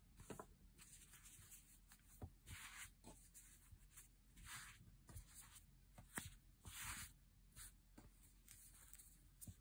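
Faint rustling and rubbing of hands handling yarn and a crocheted piece, coming in short swishes every second or two with a few soft clicks.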